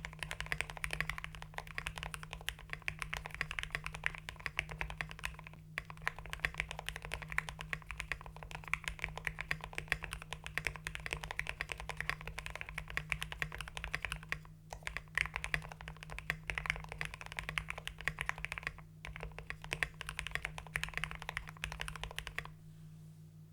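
Continuous typing on a mechanical keyboard with hand-lubed Gateron Pro Red linear switches, an FR4 plate and PBT XDA keycaps: a dense stream of keystrokes with a deep, thocky sound. It breaks off briefly three times and stops about a second before the end.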